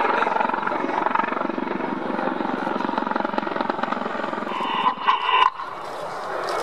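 Mi-24 Hind attack helicopter on a display pass: loud turbine and main-rotor noise with a fast, even rotor beat. It falls away after about four and a half seconds.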